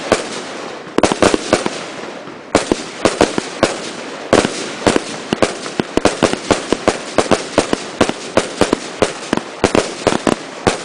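Fireworks going off in a rapid barrage of sharp bangs: a few at first, then several a second from about two and a half seconds in, over a continuous rushing hiss.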